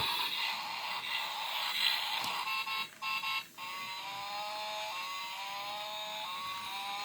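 Electronic toy sound chip: a buzzy, hissing sound effect, then from about halfway a simple beeping melody of stepped electronic notes.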